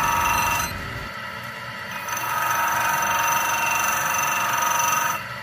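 Belt-driven bench grinder: an electric motor spins a grinding wheel with a steady whine while a steel bolt is held against it and ground along its underside. The bolt's end is being ground to open a passage for brake fluid, in place of a banjo bolt. The grinding hiss eases about a second in, builds up again, and drops off just before the end.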